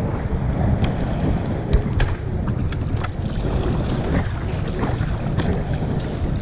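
Wind buffeting the microphone, a steady low rumble, with a few light clicks or splashes scattered through it.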